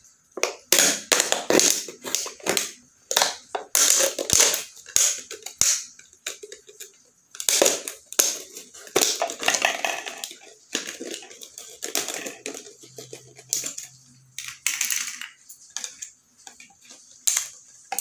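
Thin plastic drinking bottle crackling and crinkling as it is cut with scissors and handled, in an irregular string of sharp crackles.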